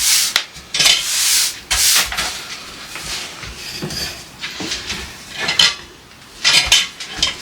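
Kitchen cleanup noises: repeated rubbing and scraping strokes with clinks of dishes and utensils.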